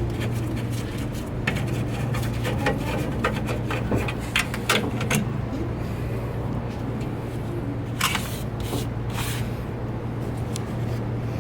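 Scattered clicks and knocks of tools and metal parts being handled as a vending machine's cooling deck is unscrewed and worked loose, over a steady low hum; the knocks bunch together about eight seconds in.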